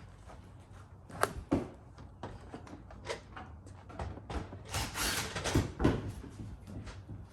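Scattered knocks and clatters on a bus roof, with a scraping rush about five seconds in, as people move about and handle tools while setting up to sweep.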